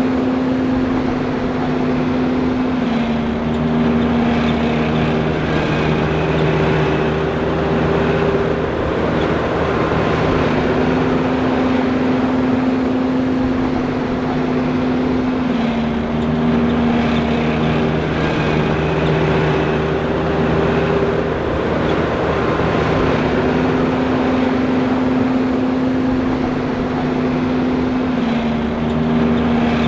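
John Deere 5820 self-propelled forage harvester running steadily under load, a dense machine drone with several steady whining tones that step up and down in pitch every few seconds.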